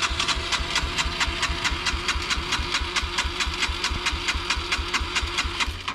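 Motorcycle's electric starter cranking a flooded single-cylinder engine, a steady even chugging of about seven pulses a second that stops abruptly without the engine catching.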